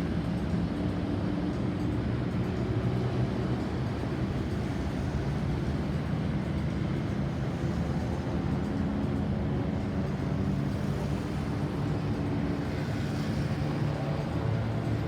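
Vehicle engines running with a steady low rumble.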